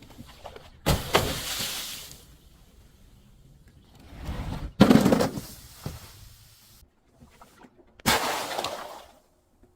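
Glass bottles shattering three times, each a sharp crash followed by about a second of crunching debris; the second break comes after a short rising crackle.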